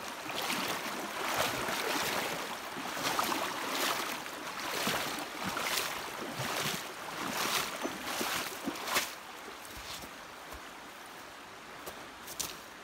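Footsteps wading through a shallow, flowing creek, a splash about once a second over the rush of the water. After about nine seconds the splashing stops and only a few small clicks of stones underfoot are left.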